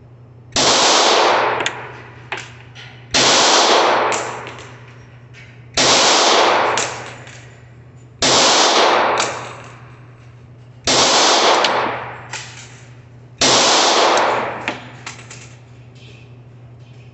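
Smith & Wesson M&P40 pistol firing .40 S&W ball ammunition: six slow, evenly spaced shots about two and a half seconds apart, each ringing out for about a second and followed by small clinks.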